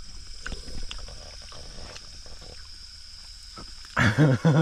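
A steady high insect drone over a quiet background with a few faint clicks, then a man's voice breaks in loudly about four seconds in.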